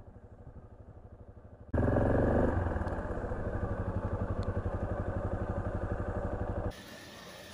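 Yamaha Serow 250's single-cylinder engine running at low speed while the bike pulls into a parking space, then idling with an even beat. It is faint and muffled for the first couple of seconds, then loud, and it cuts off suddenly near the end.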